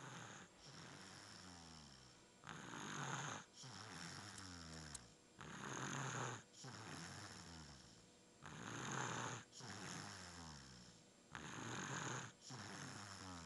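Snoring through a stuffy, congested nose, with a breath roughly every three seconds. Louder, noisy breaths alternate with quieter stretches that hold a low buzz falling in pitch.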